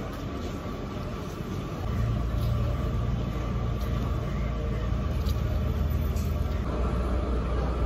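Low, steady outdoor rumble that grows louder about two seconds in, with a few faint clicks over it.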